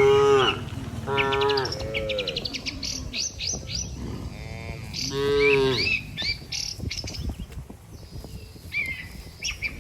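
Cattle mooing in several short, fairly high-pitched calls: one at the start, two close together about a second in, and one about five seconds in. Small birds chirp quickly in between.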